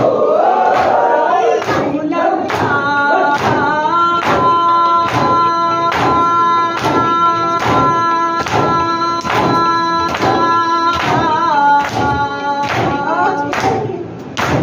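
Shia mourners doing matam, beating their chests in unison at a steady rhythm a little faster than once a second, while a group of voices sings a noha over the beats, holding one long note through the middle.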